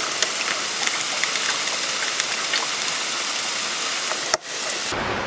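Steady hiss of heavy rain falling on the boat, dotted with small ticks of individual drops. A sharp click with a brief drop in the sound comes a little over four seconds in.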